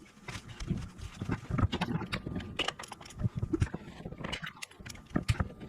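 Irregular clicks, knocks and clinks of hand tools against metal, from work on a freeze-plug hole in a tractor's engine block.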